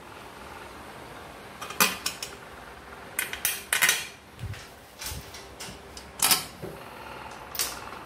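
Metal hand tools clinking and knocking against each other and on metal, about eight sharp strikes at irregular intervals, over a steady faint hum.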